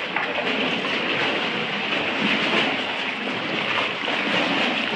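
Water sloshing and lapping against the rock walls inside a sea cave, a steady wash of sound, with kayak paddle strokes in the water.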